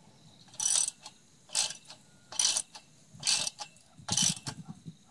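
Ratchet spanner tightening the bolt of a steel fence bracket on a concrete post: five short bursts of ratchet clicking, a little under a second apart, one per swing of the handle.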